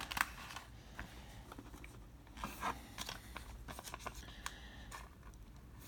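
Baseball cards being handled and sorted by hand: faint, scattered clicks and soft rustles of cardboard cards sliding against each other.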